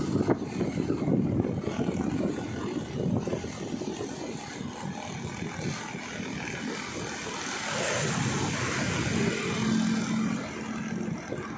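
Motorcycle riding along a road, heard from on the bike: a steady engine hum mixed with rough road and wind noise.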